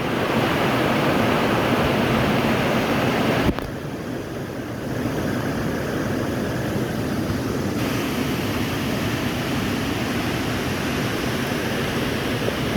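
Steady rushing of a waterfall. The sound drops and changes character suddenly about three and a half seconds in, then fills out again.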